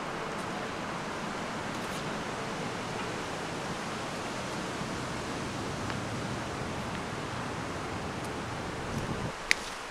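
Steady rushing of wind on the microphone. Its low rumble drops away near the end, followed by a single sharp click.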